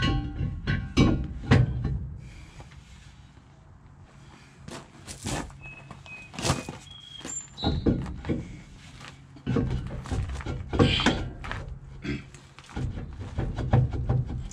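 Irregular metal knocks and clanks of hand tools and truck drum-brake parts being handled and struck, a few of them ringing briefly, over a steady low hum.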